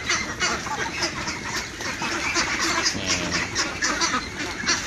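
A flock of young ducks, about six weeks old, quacking and chattering together, many calls overlapping without a break.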